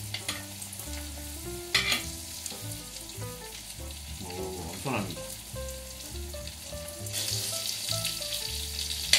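Butter with garlic and thyme sizzling in a hot cast-iron pan as a rib eye steak is butter-basted, with a sharp clink of the basting spoon about two seconds in. The sizzle grows louder about two seconds before the end.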